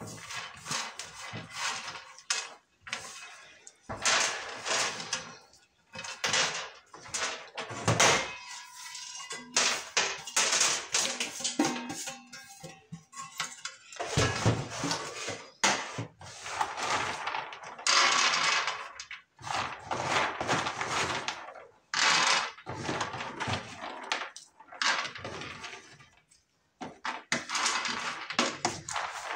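Shelled groundnuts rattling and clinking on a metal tray as they are sorted and pushed about by hand, in irregular bursts with short pauses.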